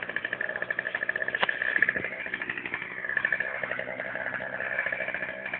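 Two-stroke chainsaw engine running at speed, with a fast, even buzz; its pitch dips slightly about three seconds in and then recovers.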